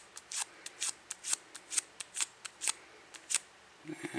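Quick wiping strokes, about two a second, rubbing a smudge off the polished chrome case of a slim Zippo lighter.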